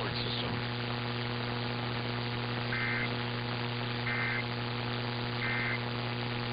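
Three short bursts of Emergency Alert System digital data tones, each about a third of a second long and about a second and a half apart. They sit over a steady electrical hum and radio static from an off-air receiver.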